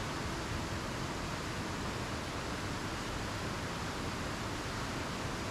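Mountain river rushing over cascades: a steady, even rush of water with no breaks.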